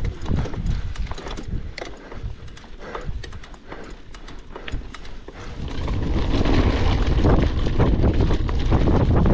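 Mountain bike rattling and clicking over a rough, stony gravel track. About six seconds in, a louder, steady rush of wind on the handlebar camera's microphone takes over.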